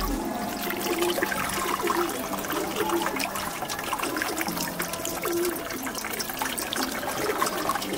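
Water poured from a plastic jug trickling and splashing into a steel bowl and running off through a cloth filter, rinsing out gold flakes.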